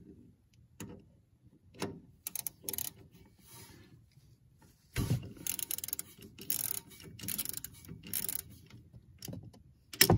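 Socket ratchet loosening a drain bolt on a lawn tractor's transaxle: a few scattered clicks, then from about halfway a run of quick ratcheting clicks lasting a few seconds, and one louder click near the end.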